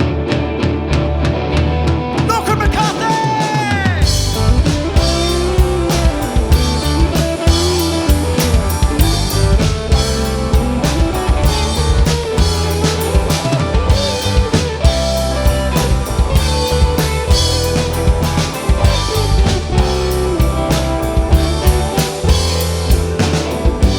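Live alternative/indie rock band playing: electric guitar and bass over a full drum kit, with gliding, bent notes. The drums come in fully about four seconds in.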